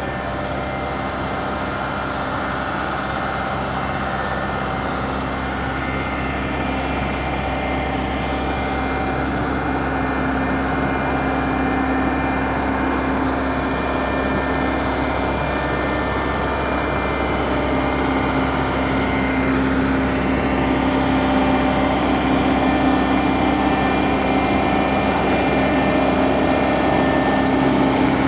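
A large engine running steadily, growing slowly louder.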